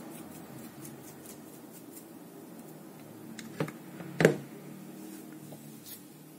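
Paintbrush dabbing white acrylic paint onto a hand-held diorama rock piece, faint scratchy strokes, then two knocks about half a second apart, the second louder, as the rock piece and the brush are put down. A faint steady hum lies under it.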